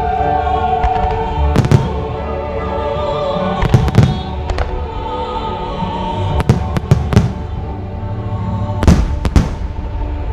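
Display fireworks bursting with about eight sharp bangs, several in quick pairs, over steady music.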